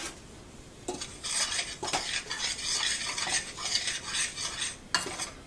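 Metal spoon stirring and scraping powdered baking soda in a stainless steel saucepan, a dense gritty scraping with a few sharp clinks, the last near the end.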